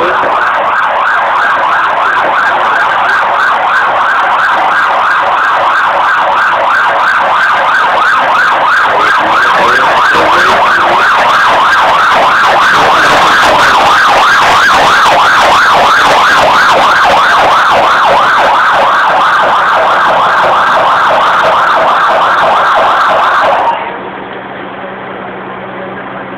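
Loud emergency-vehicle siren in a rapid yelp, its pitch cycling quickly up and down. It cuts off abruptly near the end, giving way to a quieter steady low hum.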